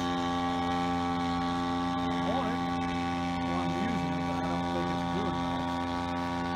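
Engine of a full-size radio-controlled Demoiselle monoplane replica in flight, a steady drone that holds one pitch.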